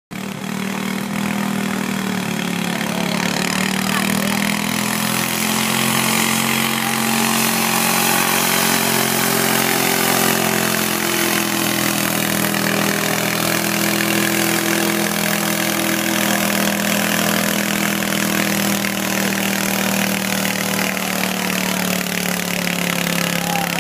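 Modified lawn tractor engine running hard under load while pulling a weight-transfer sled, a loud, steady engine note that holds its pitch.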